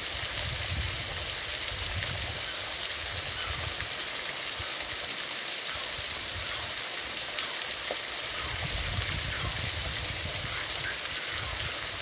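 Small waterfall splashing down a mossy rock face into a shallow pool: a steady rush of falling water, with a low rumble coming and going underneath.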